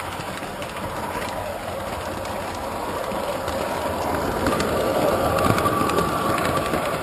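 Three-rail model train running along its track, heard close up from a camera riding on it: a steady rolling noise of wheels on rails that grows louder about four seconds in, with a faint high whine joining at the same time.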